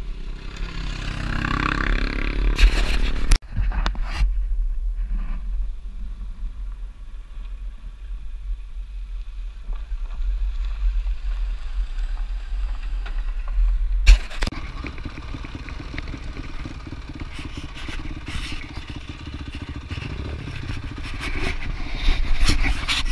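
Dirt bike engines running and revving, with a rise in pitch in the first few seconds, under heavy wind rumble on the microphone. The sound cuts off abruptly and changes several times.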